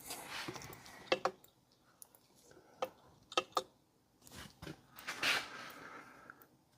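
Faint handling noises of small chainsaw parts being fitted by hand: a few light sharp clicks and taps, then a longer rustling scrape in the second half.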